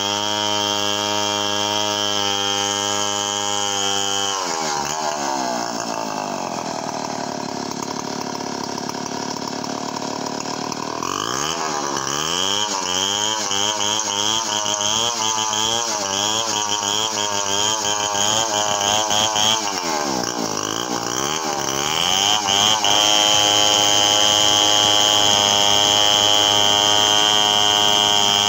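Large two-stroke chainsaw, an assembled saw like a Stihl 070, ripping a log lengthwise. It runs at full throttle. Its pitch sags about four seconds in and rises and falls repeatedly through the middle as it is pushed through the wood, then holds steady again for the last several seconds.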